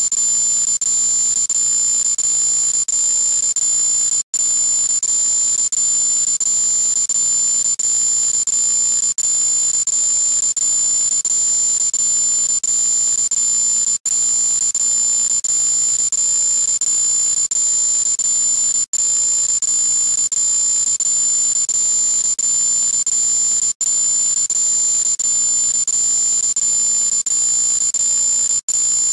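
A shrill, high-pitched steady tone over harsh hiss, deliberately loud, broken by a split-second dropout about every five seconds.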